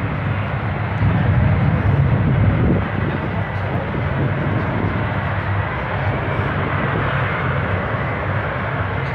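F-35B Lightning II's Pratt & Whitney F135 jet engine and lift fan running at high thrust in short-takeoff/vertical-landing mode: a loud, steady, deep jet noise with a faint high whine over it, swelling a little about a second in.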